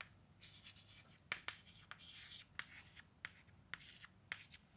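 Chalk writing on a chalkboard: faint scratchy strokes, with about half a dozen sharp taps as the chalk meets the board.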